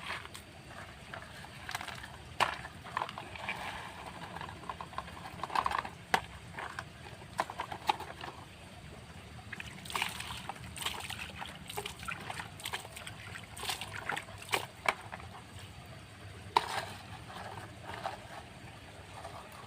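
A toy truck being washed: water sloshes and splashes, with irregular scrubbing scrapes and small knocks as it is handled.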